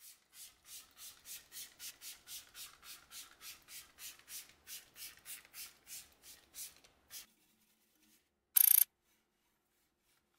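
A brush scrubbing a soapy alloy car wheel in quick, even strokes, about three or four a second, stopping after about seven seconds. A short, loud hiss follows about a second and a half later.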